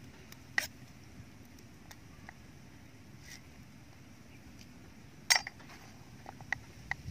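Knife chopping on a round wooden chopping board: a few sharp knocks, the loudest about five seconds in, followed by a few lighter taps.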